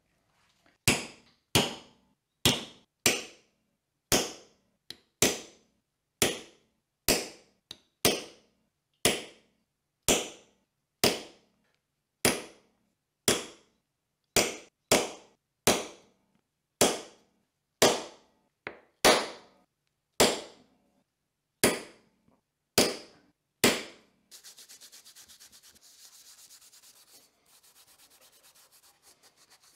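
Brass hammer striking a small steel punch on a pine block: about two dozen sharp taps at roughly one a second, each ringing briefly. At about 24 s the tapping stops and a steady rubbing takes over as the block's edges are sanded by hand.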